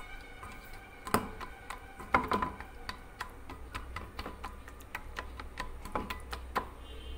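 A hand squeezing and mixing a crumbly flour mixture in a stainless steel bowl, making an uneven run of small clicks and taps against the metal, a few of them louder.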